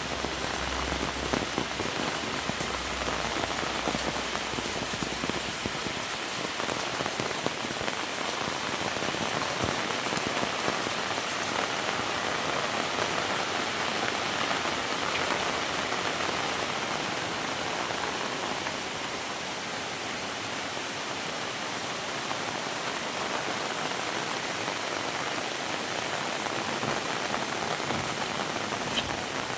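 Heavy rain falling steadily, a dense even hiss of drops hitting surfaces, with a low rumble underneath for the first few seconds.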